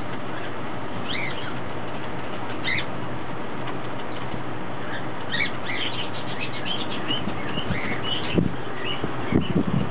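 Steady hiss with short, high chirps scattered through it, more frequent in the second half. Low rustling and bumps of handling come in near the end.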